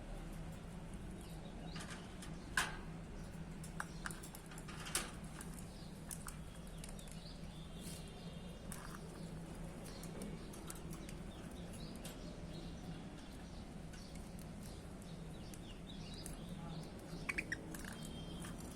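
Pet budgerigars making a few faint chirps and rustles over a steady low hum, with short sharper sounds about two and a half and five seconds in and a quick cluster of chirps near the end.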